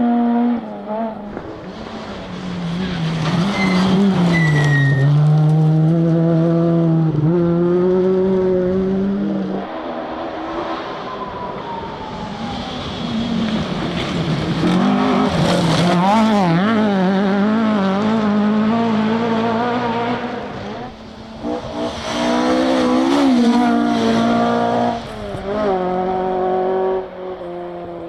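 Rally cars driven hard on a forest stage, engines revving up and down in pitch through gear changes and lifts. Several separate car passes follow one another, with breaks about a third of the way in, around three quarters of the way, and near the end.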